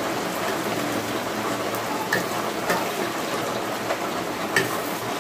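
Rain falling steadily, with a few sharp clinks of steel spoons against steel plates.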